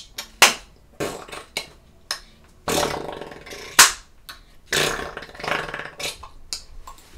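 A person making beatbox-like mouth noises: irregular sharp clicks mixed with short hisses lasting about half a second to a second.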